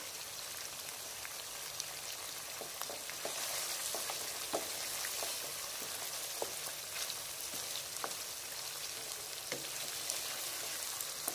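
Mutton curry sizzling in a nonstick wok while a wooden spoon stirs it, with scattered light clicks of the spoon against the pan.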